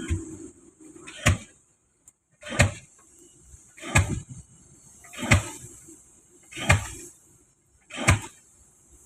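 Six heavy, evenly spaced strikes about every second and a half, typical of a pile hammer driving a spliced concrete pile.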